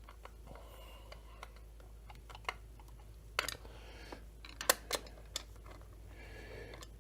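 Scattered light clicks and taps of small metal parts being handled, a few sharper ones a little past the middle, as the crankcase screws of a chainsaw are started by hand.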